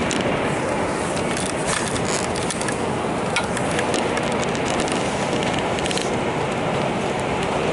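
Steady running noise heard from inside a moving vehicle, with scattered light clicks and rattles.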